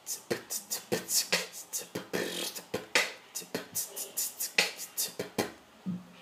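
Vocal beatboxing: a simple beat made with the mouth from bass-drum kicks, "tss" hi-hat hisses and snare hits in a quick, even rhythm, stopping near the end.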